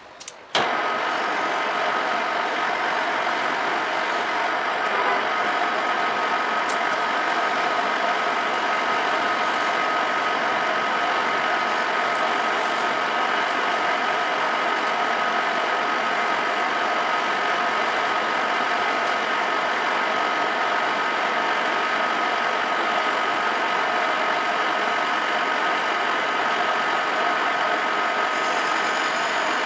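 Metal lathe starting up about half a second in, then running steadily with a high whine, its four-jaw chuck spinning.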